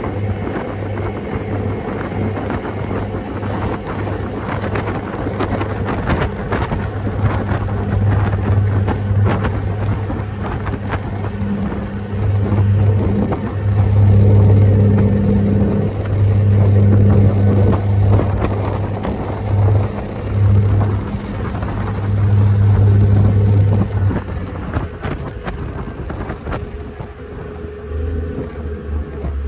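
Ferry engines running with a steady low hum, louder through the middle and dropping to a lower pitch near the end, under wind buffeting the microphone and water rushing past the hull.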